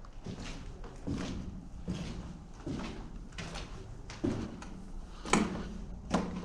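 Footsteps at a steady walking pace: about eight steps, one every three-quarters of a second or so.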